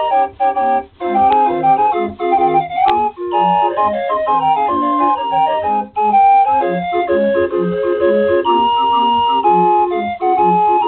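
Small wooden pipe organ playing a march: sustained reedy melody notes over an evenly pulsing bass, with a few brief breaks in the sound.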